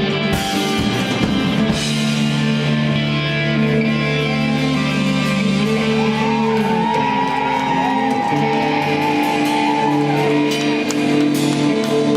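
Live rock band playing an instrumental passage: electric guitars hold long sustained chords over bass, with wavering, bending guitar notes above them from about halfway through.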